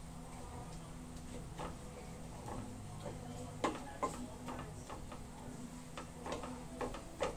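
Wooden spatula knocking and scraping against a stainless steel frying pan as bagoong (shrimp paste) is stirred. The taps come irregularly, sharper and more frequent in the second half.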